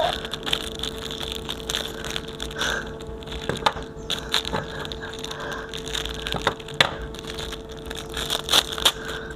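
Clear plastic wrapping crinkling and crackling in short, irregular snaps as hands peel it away from a small plush hat, over a faint steady hum.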